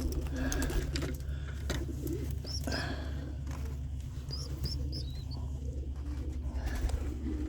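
Racing pigeons cooing, with a few short, high, rising peeps scattered through.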